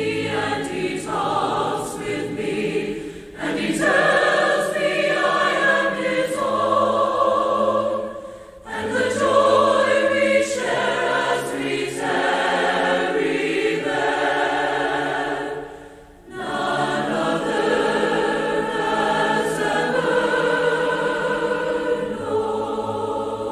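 Choir singing a slow choral piece in long held phrases, pausing briefly about eight and sixteen seconds in.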